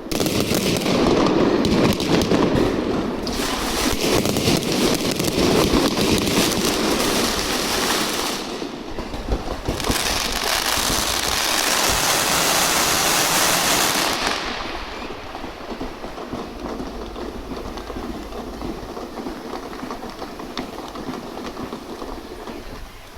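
Aerial fireworks going off: a dense run of rapid crackling and bangs that thins briefly about nine seconds in, then dies down about fourteen seconds in to a much quieter background.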